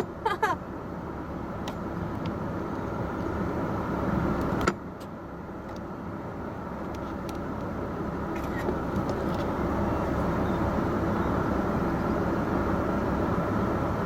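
A car driving: steady road and engine noise, with a sharp click a little under five seconds in, then the noise slowly grows louder.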